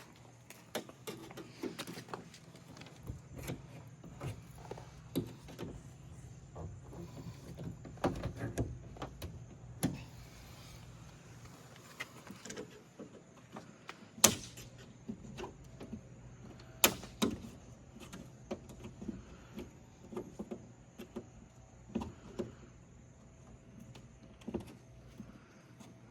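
Irregular clicks, taps and knocks of a wooden shipping crate being dismantled by hand as its metal clip tabs are bent open and its panels handled, with two sharp, louder knocks a little after the middle.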